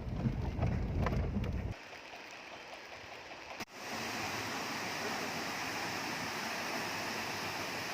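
Steady, even rush of a waterfall, starting abruptly about three and a half seconds in. Before it, a low rumble cuts off about two seconds in.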